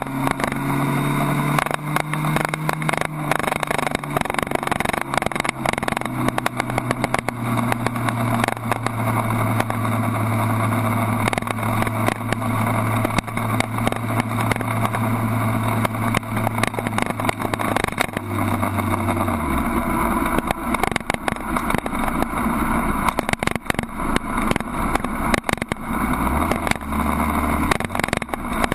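Suzuki Hayabusa inline-four sport bike engine running at a steady moderate speed, then dropping in steps to a low, slow-riding pitch about two-thirds of the way in as the bike slows. Constant wind rush and buffeting on the tail-mounted camera's microphone.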